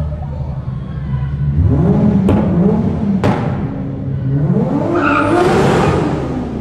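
Mk4 Toyota Supra's straight-six engine revving hard as the car accelerates, echoing off tunnel walls. There is a sharp pop about two seconds in and another about a second later, then a second climb in revs that ends in a loud rush of hiss.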